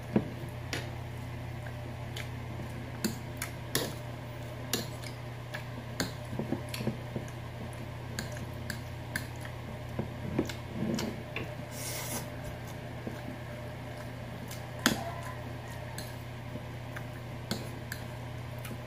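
Metal fork tapping and scraping on a plate while twirling and lifting palabok noodles, with scattered sharp clicks, the loudest about two-thirds of the way through, over a steady low hum.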